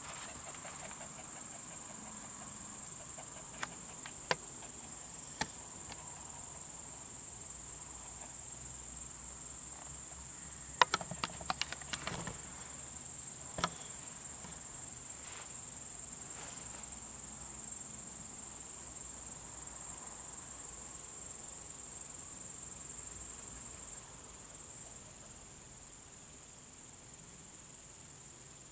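A steady, high-pitched chorus of insects chirring on a summer night, with a few sharp clicks about four to five seconds in and a quick cluster of clicks near the middle.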